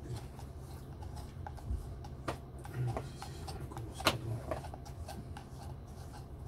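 A hand with long fingernails handling and turning a paper coffee cup with a plastic lid: small taps, scrapes and clicks, the sharpest about four seconds in. Under it, the low steady rumble of the train.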